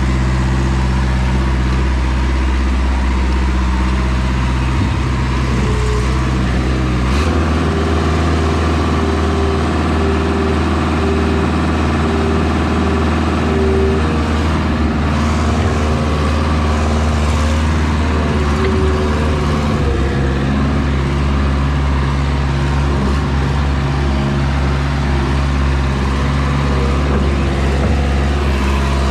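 Diesel engine of a truck-mounted Moffett forklift running while unloading. It speeds up about seven seconds in, holds the higher speed, and drops back to a lower speed about twenty seconds in.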